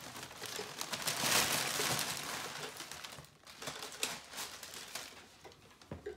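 Wrapping paper crinkling and rustling as gifts are unwrapped, loudest between one and two seconds in, then thinning to scattered crackles.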